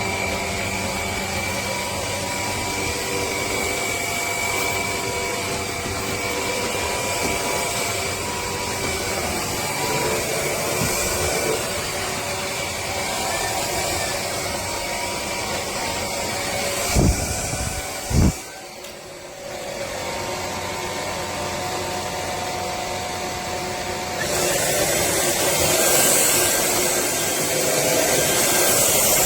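Dreame Z20 cordless stick vacuum running steadily, its motor giving a steady whine. About 17 and 18 seconds in there are two sharp knocks and a brief dip, and the sound grows louder from about 24 seconds in.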